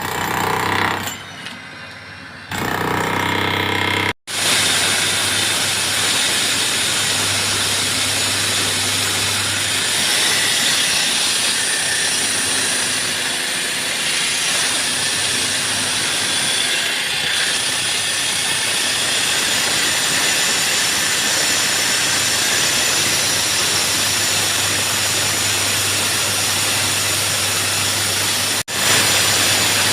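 Concrete-cutting power saw running steadily through concrete: a loud, dense cutting noise over a low hum, cutting out briefly twice.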